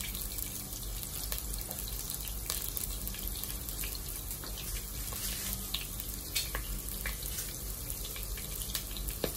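Diced onion and garlic sizzling gently in olive oil in a pot: a steady hiss with scattered small pops and crackles.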